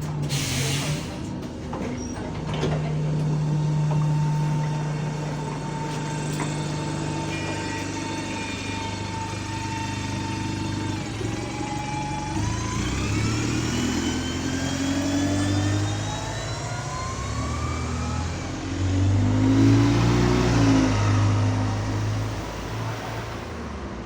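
Bus engine idling, with a short burst of air hiss about half a second in as the parking brake is released. The bus then pulls away: from about twelve seconds in a gearbox whine rises in pitch with road speed, over engine revs that grow louder near the twentieth second.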